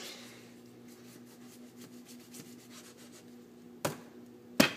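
A kitchen knife sawing through a cantaloupe half, with a soft scrape at the start. Near the end come two sharp knocks against the wooden cutting board, the second louder.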